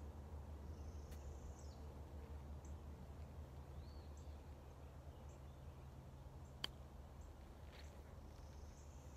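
A golf club striking the ball on a short chip shot: one sharp click about two-thirds of the way through. Around it, quiet outdoor ambience with faint bird chirps.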